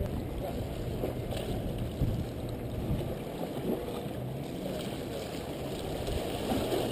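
Steady low rush of wind and choppy water lapping against the rocks of a jetty, with a few faint brief knocks.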